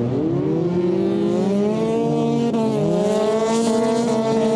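Ice race car engines revving hard, the pitch dipping and climbing again twice as the throttle is lifted and reapplied, then holding high and steady through the second half.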